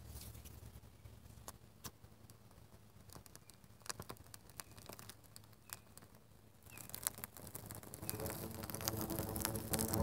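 Birch bark being lit in the mouth of a pipe set in the ground: scattered small clicks and crackles at first, then about seven seconds in the flame flares up with a rush. From about eight seconds a low droning tone with overtones builds as the fire's draught through the pipe sets it humming.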